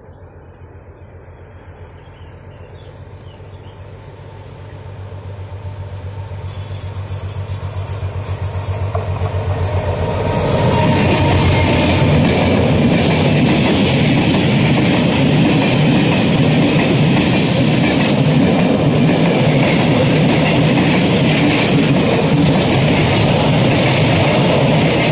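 Freight train hauled by a ČD Cargo class 742 diesel locomotive approaching, its diesel engine growing steadily louder over the first ten seconds. The train then passes close by as a loud, steady rumble with the clickety-clack of the wagons' wheels over the rail joints.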